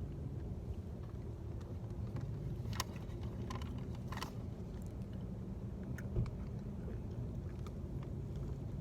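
Steady low rumble of a car cabin, with a few light clicks and rustles and one soft thump about six seconds in.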